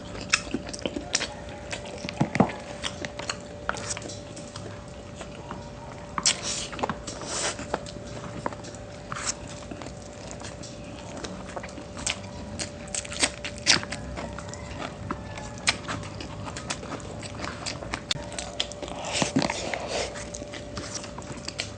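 Close-up eating sounds of chicken and pork adobo with rice: chewing and biting, with scattered sharp clicks and a faint steady hum underneath.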